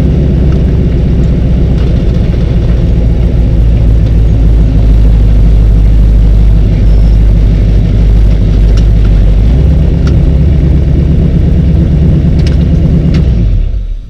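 Race car engine idling loudly inside the cockpit, its note shifting slightly about ten seconds in, then cutting off near the end as the engine is switched off.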